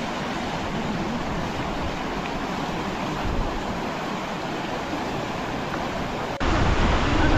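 Fast mountain river rushing over rocks and rapids, a steady wash of water noise. About six seconds in it jumps to a louder, closer rush with more low rumble.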